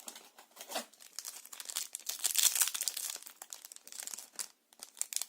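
A Yu-Gi-Oh booster pack's foil wrapper being crinkled and torn open. A dense run of crackles, loudest about two to three seconds in.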